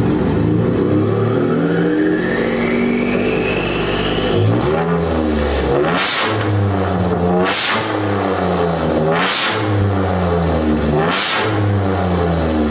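2017 Ford F-150's 2.7L EcoBoost twin-turbo V6 with catless downpipes and a 4-inch MBRP exhaust: a turbo whistle climbs steadily in pitch for the first few seconds, then the engine is revved up and down about four times, each rev carrying a short rush of air noise.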